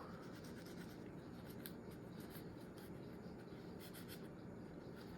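Faint rubbing and scratching from Glock pistol parts being cleaned, with a few light ticks.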